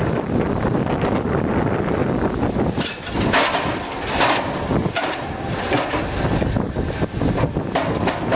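Link-Belt diesel pile hammer working, a heavy, continuous mechanical din with brighter swells about three and a half and four seconds in.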